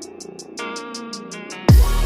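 Electronic background music with a steady ticking beat. Near the end comes a sudden loud hit with a falling low sweep.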